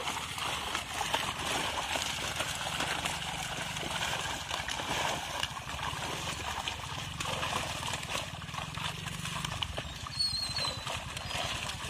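Live fish thrashing in a seine net hauled into shallow water: a dense, continuous patter of small slaps and splashes as the fish flap against the mesh and the water.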